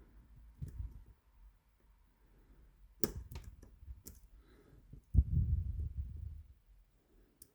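Small metallic clicks from an improvised pick working the pins of an 8-pin tubular cam lock. The clicks are scattered and sharp, with a louder knock about five seconds in followed by a second or so of low handling rub.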